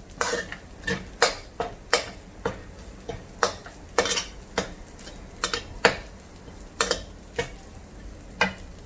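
Spatula scraping and clinking against the pan as egg fried rice is stir-fried, with irregular strikes about every half second over a faint sizzle.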